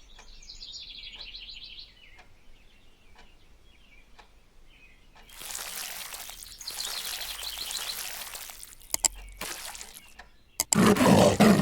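A bird chirps in a rapid run of repeated high notes, followed by a steady rushing noise with more bird chirps through it. A loud, rough sound starts about a second before the end.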